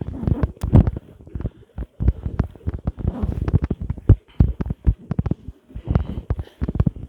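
Rapid, irregular low thumps and rubbing from a microphone being knocked and brushed while the person carrying it walks, several knocks a second.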